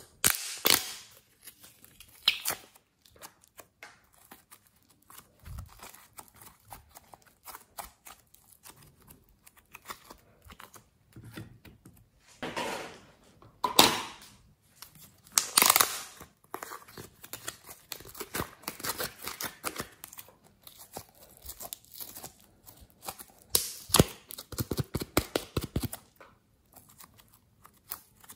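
Thick slime being squeezed out of small plastic tubs and pressed by hand, giving irregular sticky crackling and popping, with the plastic tubs crinkling. The loudest bursts come about halfway through.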